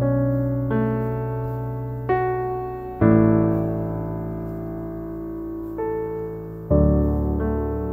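Slow, gentle solo piano music: chords struck every second or so, each ringing out and fading before the next.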